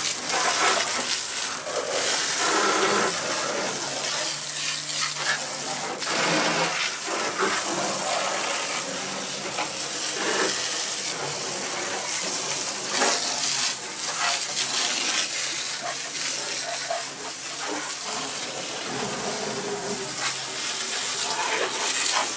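Water sprayed onto the floor of a truck cab: a continuous rush of splashing water that starts suddenly and shifts as the spray moves around.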